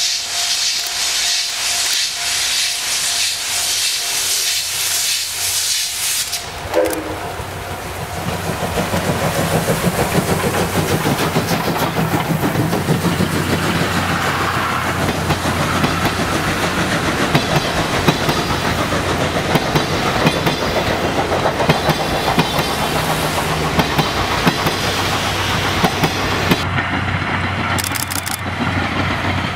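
JNR C57-class steam locomotive C57 180 working hard as it pulls away, its exhaust beating fast under a loud hiss of steam from the cylinders. After about seven seconds this gives way to passenger coaches rolling past, with a steady rumble and the wheels clacking over rail joints.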